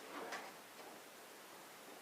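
A couple of faint, light knocks in quick succession about a quarter-second in, from workpieces being handled during the build, then only low background hiss.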